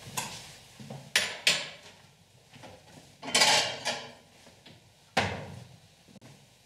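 Kitchen dishes and pots being handled: a series of about six separate knocks and clatters, the loudest about three and a half seconds in, with a heavier thump a little after five seconds.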